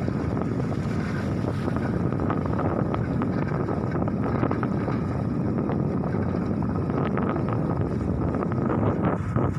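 Heavy diesel machinery running steadily, a low rumble with a faint whine above it, mixed with wind buffeting the microphone.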